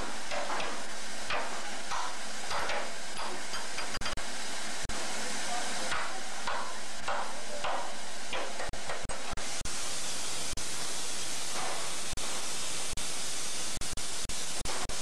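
Steady steam hiss from a narrow-gauge steam locomotive standing in steam.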